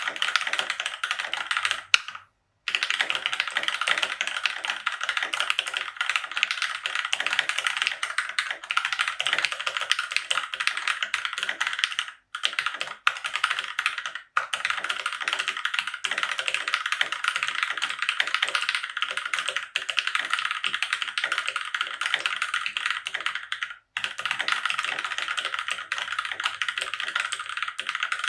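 Keychron K6 aluminium-frame mechanical keyboard with Gateron Brown tactile switches being typed on fast and continuously, a dense stream of key clacks with a few brief pauses.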